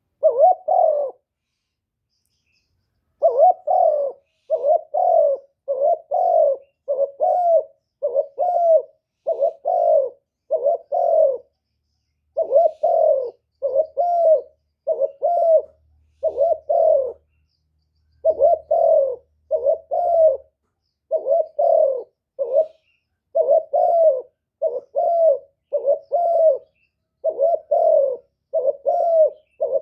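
Spotted dove call used as a decoy, cooing over and over: low coos about once a second, with a pause of about two seconds after the first.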